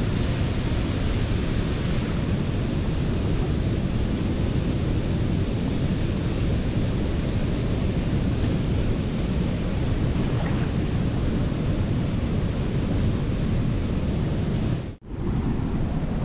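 Steady, loud rush of a large waterfall pouring into a churning pool, heard close by. It cuts out briefly about a second before the end.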